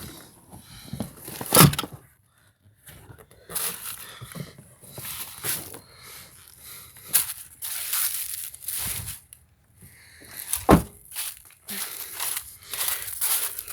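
Handling noises at an open car door: patchy rustling and scuffing, with a sharp knock about a second and a half in and another near 11 seconds. This fits the rear door's child-safety lock being switched off.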